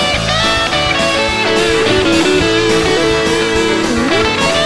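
Rock band playing live. An electric lead guitar holds and bends long sustained notes over a steady beat from drums and bass.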